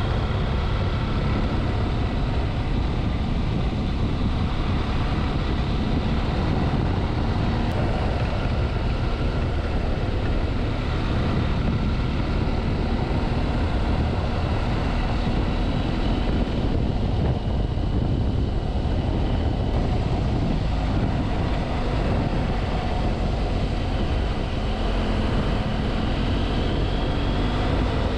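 BMW F700GS parallel-twin engine running under way, its pitch drifting gently up and down through the bends, mixed with wind rushing past the rider.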